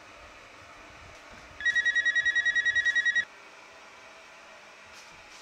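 Cordless phone handset ringing: one electronic trill, a high tone pulsing about ten times a second for about a second and a half, starting about a second and a half in.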